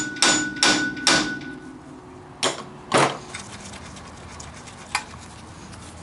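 A steel claw hammer strikes the side of a 1998 Ford Ranger's steel spindle in quick, ringing metallic blows, about three a second, to shock the tie rod end's taper loose. The hammering stops after about a second, and two more knocks follow about half a second apart.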